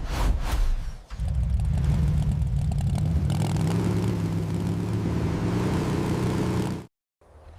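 An engine runs with a steady low drone after a sharp start and a brief dip about a second in. It cuts off abruptly near the end.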